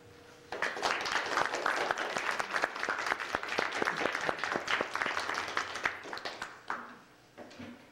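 Audience applauding, many people clapping by hand. It starts about half a second in and dies away near the end.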